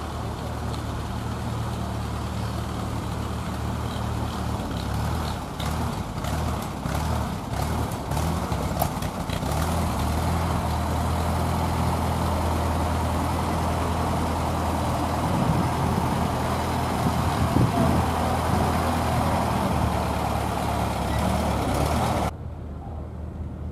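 A vintage tractor engine idling steadily, with a few short knocks about a quarter of the way in. The sound drops away suddenly near the end.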